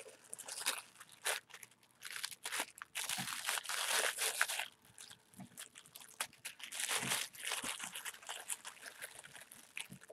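Paper packet and tissue paper crinkling and rustling in irregular bursts as hands turn it over and work at its taped closure.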